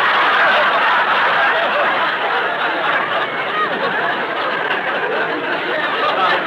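Studio audience laughing at a punchline, one long sustained laugh. The sound is heard through an old broadcast transcription recording with the high end cut off.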